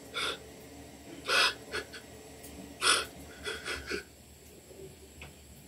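A man's sharp, heavy breaths: three loud gasps about a second and a half apart, then a few shorter quick breaths.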